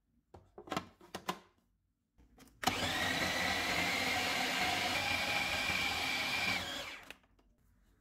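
Electric food chopper: a few plastic clicks as the lid is fitted, then the motor runs steadily with a whine for about four seconds, chopping a beef mince and egg mixture, and spins down.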